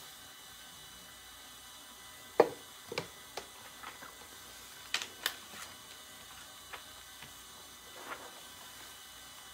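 Handling noise from a DTF transfer film sheet and a plastic tub: a few sharp knocks and taps, the loudest about two and a half seconds in, a cluster around five seconds, with light rustles of the film.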